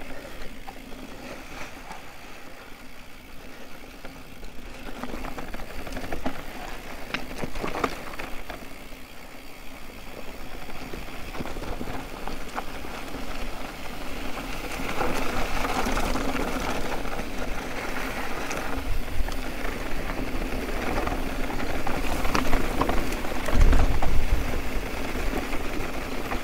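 Electric mountain bike riding down a loose, rocky dirt road: tyres crunching over gravel and the bike rattling over rocks, with scattered sharp knocks. It gets louder as the descent gets rougher, with a strong low rumble near the end.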